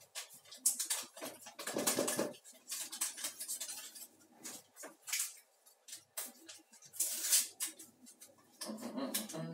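Small paper sachet of baking powder being torn open and crinkled by hand over a bowl of flour: irregular crackling and rustling in short bursts.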